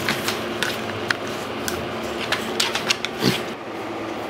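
A piglet's small hooves clicking and tapping on a hardwood floor as she walks and noses about, with a brief low grunt-like sound about three seconds in.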